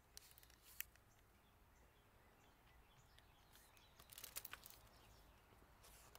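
Near silence, with a few faint rustles and clicks from a paper picture book being handled and its pages turned, the most of them around four seconds in.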